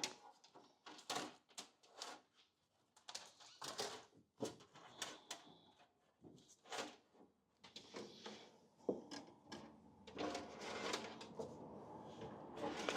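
Wires being handled and bundled with tape: a string of short clicks, crinkles and rasps, getting denser and more continuous near the end.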